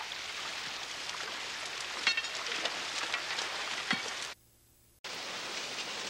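Shallow creek water running over rocks, a steady hiss, with a short sharp clink about two seconds in. The sound drops out for under a second near the end, then the running water resumes.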